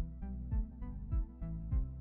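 Electronic background music with a steady beat of low drum hits, about two a second, under held synthesizer tones.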